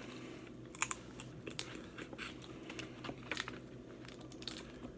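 Close-up eating sounds from a seafood meal: scattered sharp cracks and crunches, typical of snow crab shells being broken and chewed, spaced about half a second to a second apart.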